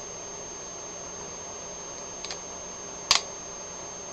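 Steady background hiss with two short clicks: a faint one a little over two seconds in and a sharper, louder one about three seconds in.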